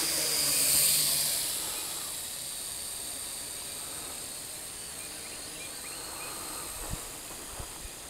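Ares Ethos QX130 mini quadcopter's motors and propellers whining at high pitch as it spins up and lifts off, loudest about a second in, then fading to a steadier, fainter buzz as it climbs away.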